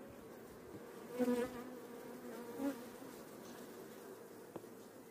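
Honeybees humming around an opened hive, a steady buzz of many bees that swells briefly about a second in. A single light click sounds near the end.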